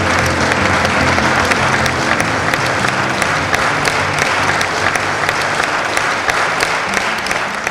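Sustained applause from a large group of people clapping together, a dense even patter of many hands.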